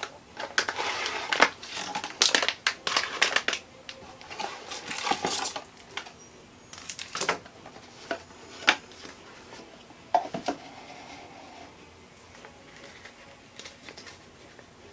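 Cardboard box and its packing being opened and handled: crinkling, rustling and sharp clicks and taps, busiest in the first six seconds, then a few separate clicks before it goes quiet.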